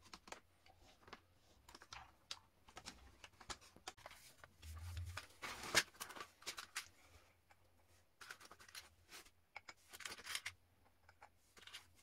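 Quiet workbench handling noises: scattered light clicks and knocks as the flexible shaft is fitted to the drill chuck and a plastic case of rotary-tool bits is handled, with one sharper knock about six seconds in.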